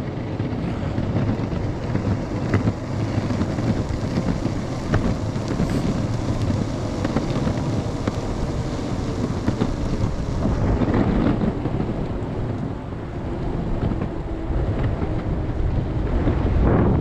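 Strong wind buffeting the microphone during an electric skateboard ride, a steady low rush over the rolling of the board's wheels on pavement. A faint steady whine runs underneath, with a few sharp ticks as the wheels go over joints.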